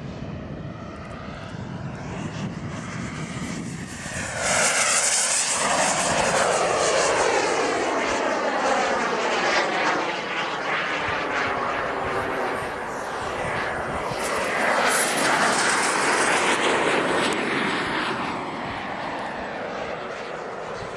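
Turbine engine of a radio-controlled Fly Eagle F-14 Tomcat model jet (a JetCat turbine) running in flight as the plane passes overhead. The jet rush swells sharply about four seconds in and stays loud, with a sweeping, whooshing quality as the plane moves across the sky, then eases a little near the end.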